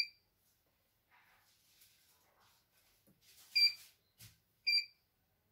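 Key-press beeps from the control panel of a CNY E900 computerized embroidery machine: three short high beeps, one at the start, one about three and a half seconds in and one near five seconds, with faint tapping and rustling between them.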